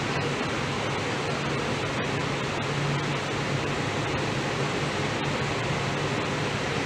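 Steady air-conditioning hiss with a low, even hum, from the KL Monorail car's ventilation while the train stands at a platform with its doors open.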